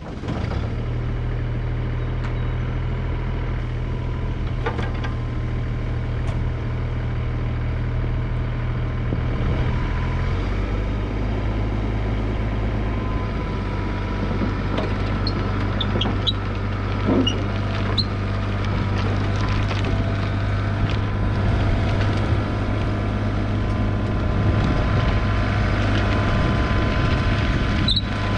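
John Deere mini excavator's diesel engine running steadily, its pitch changing about ten seconds in as the engine speed changes. Occasional metal clanks come in the second half as the machine works its boom and moves toward the trailer ramps.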